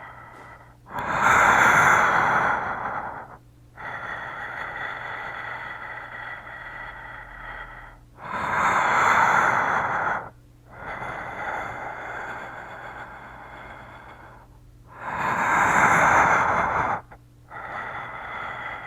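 A person imitating Darth Vader's respirator breathing with his voice: three loud, harsh breaths, about one every seven seconds, each followed by a longer, quieter breath.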